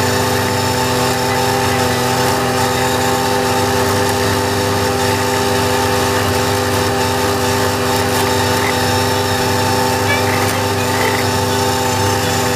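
Valtra A93 tractor's diesel engine running at steady working speed, driving an Agrimaster KP2600 flail mower through the PTO shaft while it cuts grass. A constant drone with several held tones and a hiss over it, unchanging throughout.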